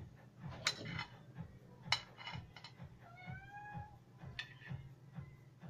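A cat meows once, a drawn-out call a little under a second long about three seconds in. Metal tongs clack against a wok several times while pork feet are turned.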